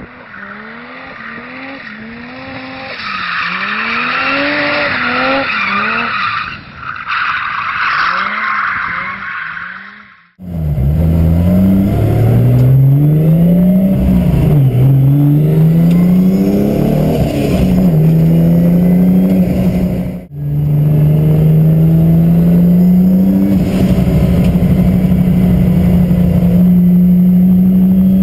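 A car drifting on a track, its tires squealing while the engine revs up and down in quick sweeps. Then, from inside a rear-wheel-drive Ford Focus swapped to a turbocharged 2JZ-GTE straight-six, the engine pulls hard up through the gears, rising in pitch and dropping at each upshift.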